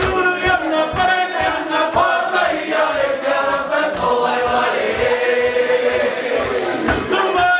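A group of voices, men's among them, singing a waiata ngahau (Māori action song) together, with one note held for a second or so about halfway through.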